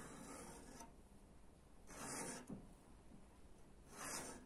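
Three faint, slow scraping strokes about two seconds apart: a hand tool rubbed against the knife stock.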